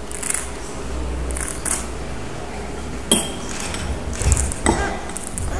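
Two sharp glassy clinks, one about three seconds in with a brief high ring and another near the end, as a quartz crystal singing bowl is touched while being handled. Soft breathy rustles come before them.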